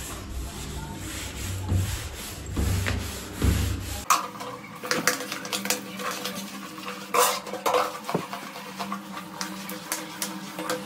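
A scrub pad rubbing cleaning liquid over a wood-grain bathroom door. It is a steady scrubbing noise for about four seconds, then changes suddenly to scattered light clicks and knocks as the scrubbing goes on along the door's panels.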